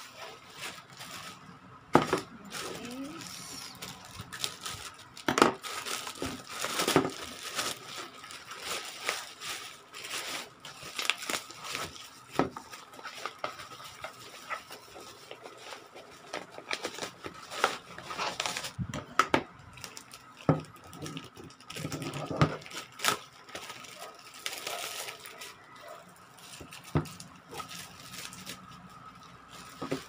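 Plastic packaging crinkling and rustling as parcels are unwrapped by hand, with irregular clicks and knocks of items being handled and set down on a table.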